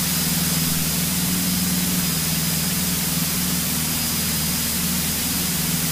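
Single-engine light aircraft's piston engine and propeller running steadily, heard inside the cabin as an even low hum under a constant hiss.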